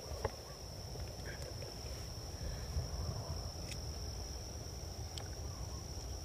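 Insects trilling in one steady, unbroken high-pitched drone, over a faint low rumble.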